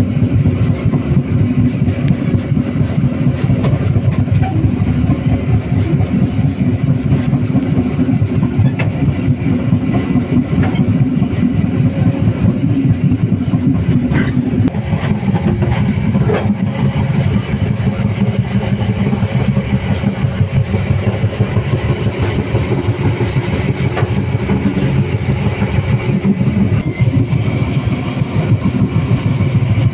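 Passenger train running along the track, heard from inside the coach: a steady low rumble of wheels and running gear. The rumble changes a little about halfway through.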